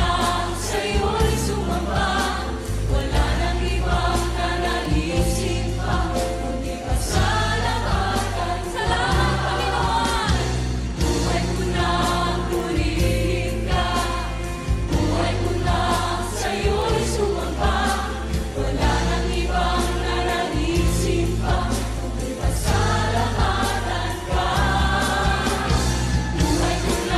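Background music: a song with singing voices over a steady bass line.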